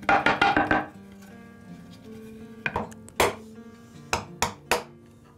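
A wooden board knocked rapidly against a wooden workbench about six times in under a second, shaking chips out of freshly cut dovetail sockets. Then five sharp wooden clicks, a chisel cutting out waste between the dovetails.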